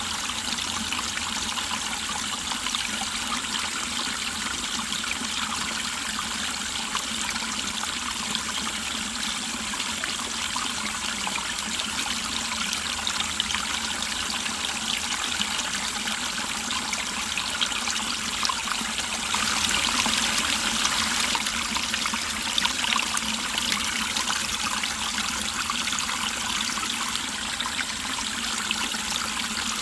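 Mountain valley stream flowing and trickling steadily, briefly a little louder about two-thirds of the way through.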